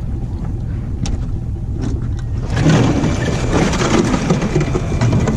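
Boat motor running steadily with a low rumble; it gets louder and noisier about two and a half seconds in.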